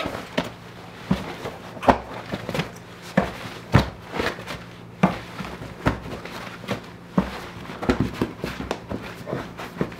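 Rubber handling noises as a partly inflated inner tube is worked by hand into a knobby dirt bike tire: irregular knocks, scuffs and rubbing, one or two a second, over a low steady hum.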